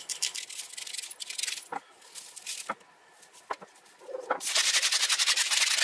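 Dry seasoning shaken from a spice shaker onto raw steak: a fast, dense rattle of granules over the last second and a half, the loudest part. Before it come a lighter rattle and a few sharp clicks.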